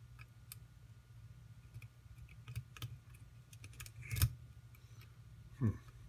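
Lock pick and tension wrench working the pins of a lock cylinder under heavy tension: scattered small metal clicks, with one louder click about four seconds in. A short sound falling in pitch comes near the end.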